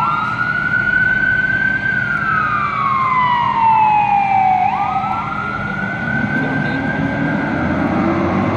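Fire-department emergency vehicle's siren wailing. It sweeps up quickly, holds high, slides slowly down over about three seconds, then sweeps up and holds again. A low rumble builds near the end.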